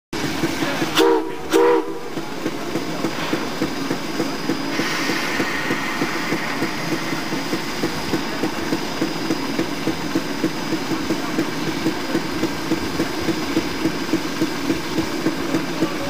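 Steam locomotive sounding two short whistle blasts, then chuffing in a steady rhythm of about two beats a second, with a rush of steam hiss about five seconds in.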